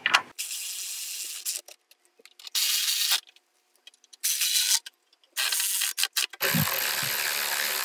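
Milwaukee cordless electric ratchet whirring in several short runs, stopping and starting, as it drives bolts snug into the aluminium engine parts.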